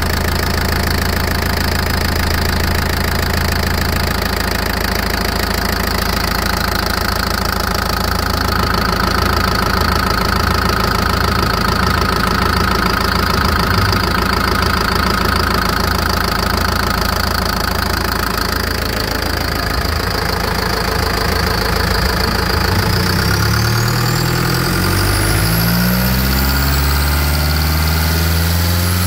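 Mercedes MBE 900 4.3-litre turbocharged four-cylinder diesel engine running at a steady idle; about three-quarters of the way through, its speed rises and then holds higher, with a high whine climbing along with it.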